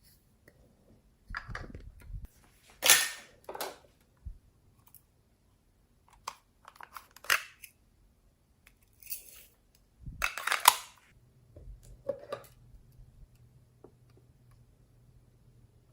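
Slime being mixed and squeezed by hand, giving scattered short sticky pops and clicks at irregular intervals, the loudest about three seconds in and again around ten to eleven seconds in.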